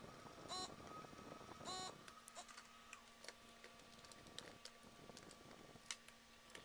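Two brief pitched buzzes from a desoldering gun's vacuum pump being triggered to suck solder off the circuit board. After them come faint scattered clicks and taps as the instrument cluster board is handled and turned over, over a low steady hum.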